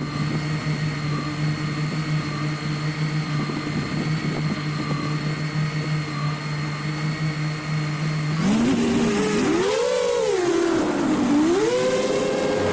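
Brushless motors of a 7-inch FPV quadcopter whining at a steady pitch. About eight seconds in, the whine gets louder and swoops up and down repeatedly as the throttle is punched and eased.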